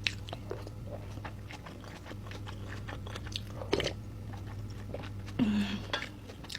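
Close-miked chewing and biting of braised pork leg and its soft skin: a run of small wet smacking clicks, with a louder knock near the middle.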